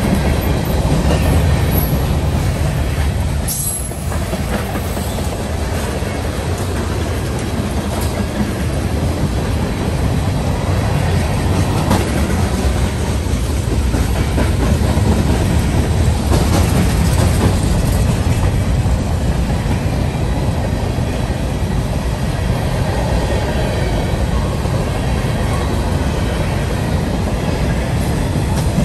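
Freight train railcars rolling on the track: a steady, heavy rumble of wheels on rail, with a few faint sharp clicks now and then.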